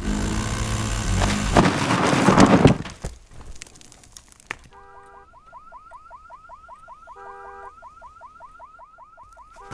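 A section of brick wall caving in: a loud crash of falling masonry and rubble lasting about three seconds. After it, an electronic alarm sounds, with quick rising chirps about three a second broken by short clusters of steady beeps every couple of seconds.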